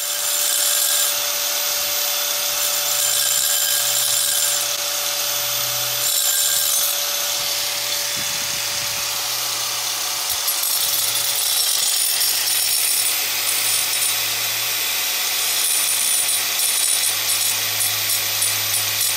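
Hitachi angle grinder with a cut-off disc running at speed and cutting through a white ceramic thermocouple protection tube. A steady motor whine sits under a gritty grinding hiss that rises and falls as the disc works through the tube.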